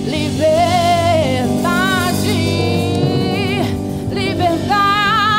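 A woman singing soul-style held notes and runs with wide vibrato, over a band's sustained chords.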